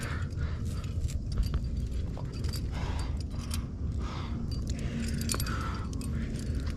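Metal climbing gear on a harness (cams and carabiners) jingling and clinking in quick, irregular clicks as the climber moves, over a steady low rumble.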